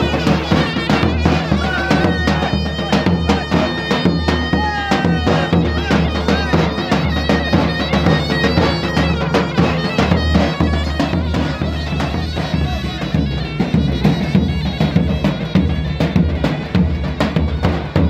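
Live folk dance music: a davul, the large double-headed bass drum, beaten with a stick in a steady dance rhythm while a wind instrument plays a winding melody over it.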